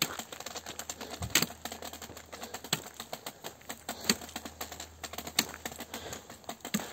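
Footsteps crunching on a gravel track: many small ticks, with a sharper click at a steady walking pace of roughly one every second and a half.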